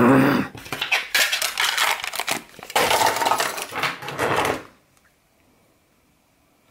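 Metal folding knives clinking and clattering against each other as they are handled, with a heavier knock at the start. The rattling goes on in irregular clusters and stops a little before five seconds in.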